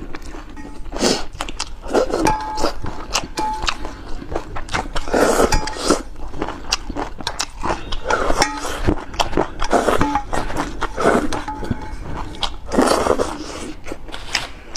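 Close-miked eating sounds: irregular chewing, smacking and slurping, with many short wet clicks.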